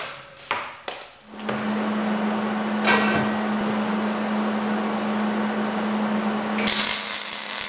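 A few clanks of steel pieces set down on a steel table, then a steady hum, and near the end the crackling hiss of a MIG welding arc as a steel post is tack-welded.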